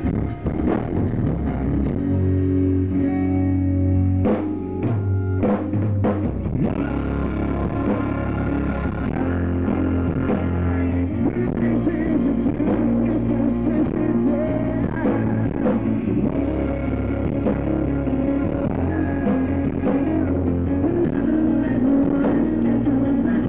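Live rock band playing, with strummed acoustic guitars over bass and drums, and a few sharp accented hits about four to six seconds in.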